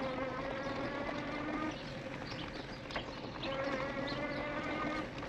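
E-bike drive motor whining steadily under assist, in two stretches of about a second and a half with a pause between, over tyre noise and small knocks from the dirt trail; a sharper knock about three seconds in.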